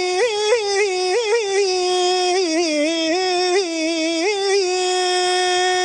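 A man's solo voice chanting in Arabic in the melismatic mosque style. He draws out the end of 'rabbil-alamin' with quick ornamental turns, then settles on a long held note about four and a half seconds in.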